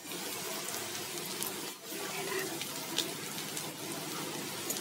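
Fish roe fritters deep-frying in hot oil in a kadai: a steady sizzle with a few sharp pops and crackles.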